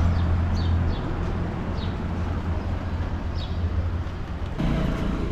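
Outdoor street ambience: a steady low rumble of traffic or wind, with a few short, high bird chirps that fall in pitch. The background changes abruptly near the end.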